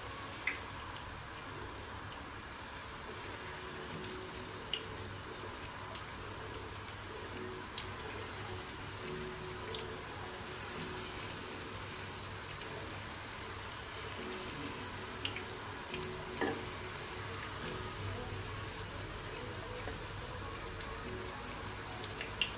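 Egg-and-breadcrumb-coated potato fingers sizzling in hot oil in a frying pan: a steady hiss with scattered small pops.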